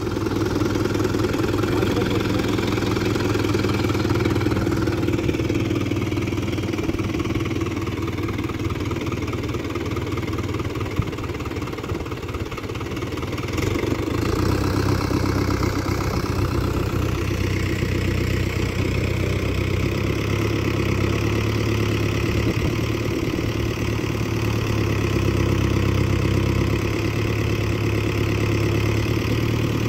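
Tractor engine running steadily at low revs, its note shifting and growing a little louder about halfway through.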